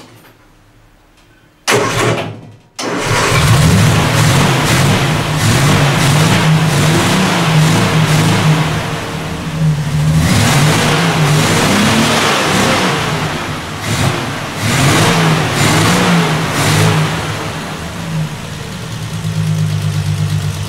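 Inline six-cylinder engine with twin carburettors cranked and firing about two seconds in, then catching and running. It is revved up and down several times before settling to a steadier run near the end.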